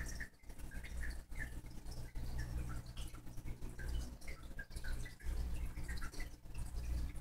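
Aquarium water trickling and bubbling, with many small drips and bubble pops over a steady low pump hum.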